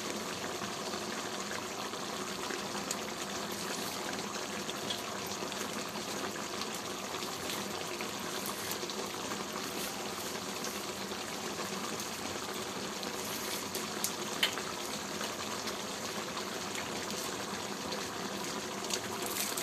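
Chicken curry simmering in a kadai: a steady bubbling hiss, with a few small pops.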